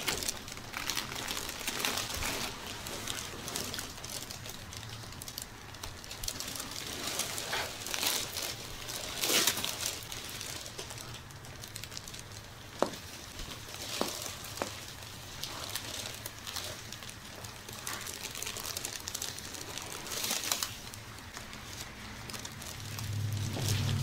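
Hands rubbing and sliding over skin and cloth during a neck and back massage: soft, irregular swishing and rustling, with a few light clicks around the middle.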